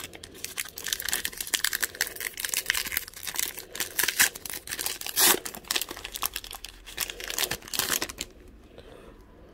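Trading card pack wrapper being torn open and crinkled by hand: a dense run of crackling with one louder crackle about five seconds in. It stops about eight seconds in.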